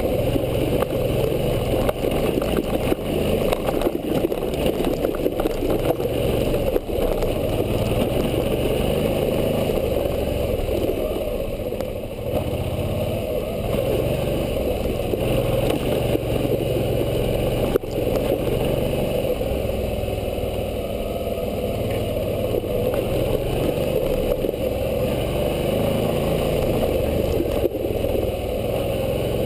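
Suzuki V-Strom 650's V-twin engine running as the motorcycle rides a dirt trail, the engine note rising and falling a little with the throttle over a rough, noisy rumble. Two sharp knocks cut in, about a quarter of the way through and again past the middle.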